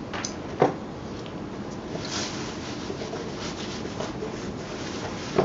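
Sandpaper rubbed by hand over chalk-painted wood: a scratchy, uneven rasping as the paint is worn through to distress it. A short knock comes about half a second in and another at the end.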